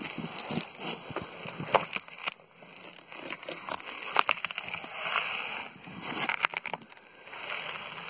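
Handling noise from a wooden nest box lined with wood shavings: irregular sharp clicks and knocks with short bursts of rustling as the box is opened and the shavings are disturbed.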